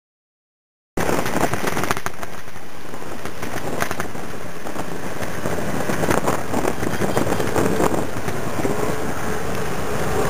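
Heavy wind buffeting on the microphone of a riding scooter, mixed with the rush of traffic and scooter engines. It cuts in suddenly about a second in, and near the end an engine note rises as it speeds up.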